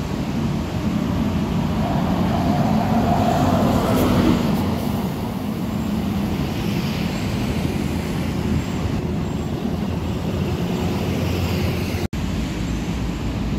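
Coach bus driving past close by: its engine and tyres swell to a peak with a rising whine about four seconds in, then fade as it pulls away, over steady road traffic. The sound cuts out for a split second near the end.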